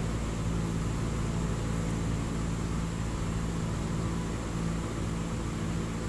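Steady electric fan unit running: a low motor hum under an even, airy hiss, unchanging throughout.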